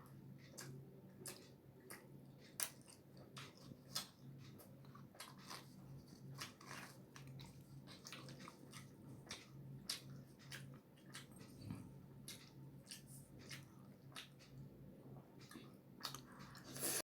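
Close-miked chewing and biting of roti with tadka: irregular wet mouth clicks and smacks, several a second, a few louder than the rest.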